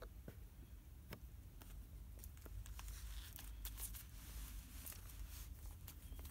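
Faint scattered clicks and light rustling from a hand handling a fountain pen over a sheet of paper, a little busier about three to four seconds in.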